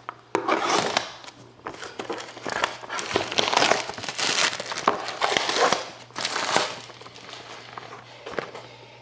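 Plastic shrink-wrap on a sealed trading-card box being cut and pulled off, crinkling in a dense run for about six seconds, then a few lighter rustles and taps.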